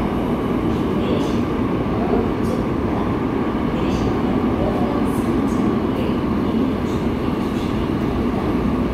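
Seoul Subway Line 8 train running, heard from inside the passenger car: a steady rumble of wheels on rail and car noise, with a few faint clicks.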